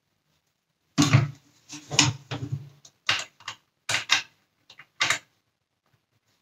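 Sharp clicks and knocks of hard plastic and a small steel screwdriver as a Dyson cyclone unit is handled and the flathead tip is worked into its tiny Torx screw heads. They come in a quick irregular run of about eight, starting about a second in, the first few with a dull thud in them.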